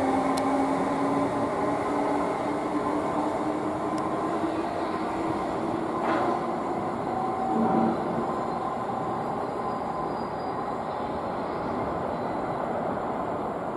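Class 317 electric multiple unit pulling away and receding down the line, its traction motors giving a hum that rises slightly in pitch as it gathers speed, over wheel and rail noise that fades gradually. A few faint clicks come from the track.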